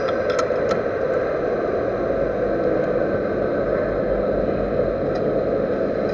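Metal lathe running steadily during a machining job on a servo motor shaft, with a few light clicks in the first second.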